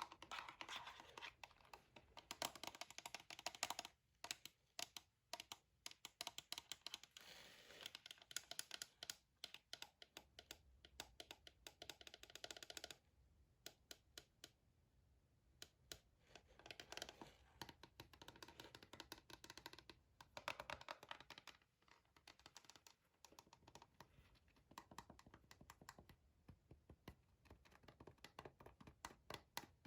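Typing on a gaming keyboard, heard close up: soft, quick runs of key clicks in bursts with short pauses, thinning out for a few seconds about halfway through.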